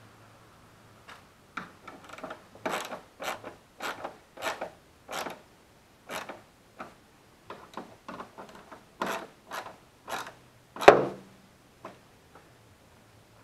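Hand ratchet wrench being worked on a fastener, a short rasping burst of ratchet clicks on each back-swing, about two strokes a second at first and then more irregular. One louder stroke with a knock comes about eleven seconds in.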